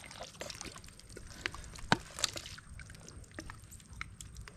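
Hands digging in soft, wet tidal mud at a mud crab burrow: scattered wet squelches, sucks and sharp little clicks and pops as the mud is worked and pulled out, the sharpest pop about two seconds in.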